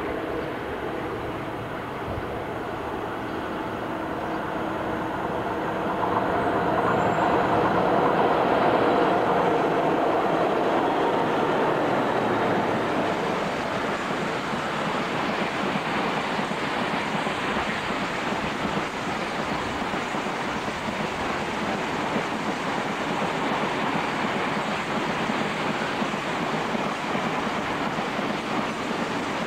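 Diesel-hauled heavy freight train passing close by: a steady engine note grows loudest a few seconds in and passes, then a long rake of loaded box wagons runs by with continuous wheel-and-rail clatter.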